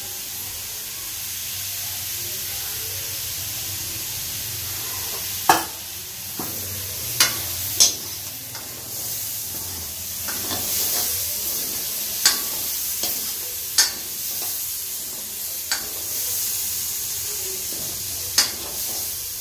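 Boiled vegetables sizzling gently in a steel kadhai over a low gas flame as they are stirred, with a metal spoon knocking sharply against the pan about seven times.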